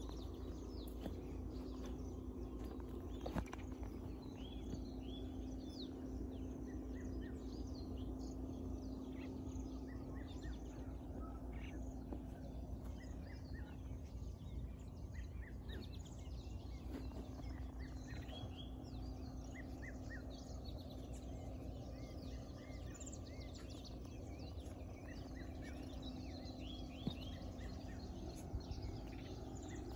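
Small birds chirping and calling on and off throughout, many short chirps, over a steady low outdoor background with a faint steady hum.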